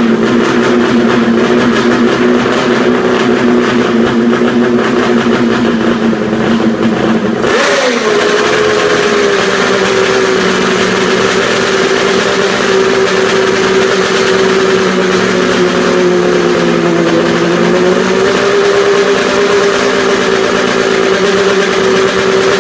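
Kawasaki H2 750's air-cooled three-cylinder two-stroke engine running steadily, freshly rebuilt after decades apart. About seven seconds in, the throttle is blipped once, the pitch jumping up and falling back, and the engine then settles at a slightly faster idle.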